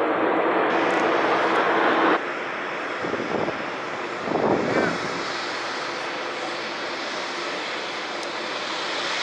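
Jet engine noise from the Boeing 747 Dreamlifter, loud at first, then dropping sharply about two seconds in to a quieter steady noise, with a brief swell a couple of seconds later.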